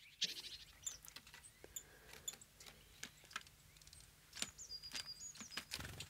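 Tits visiting a seed feeder: scattered light ticks and taps, with a few brief high chirps. Near the end comes a thin, high, wavering call lasting about a second and a half.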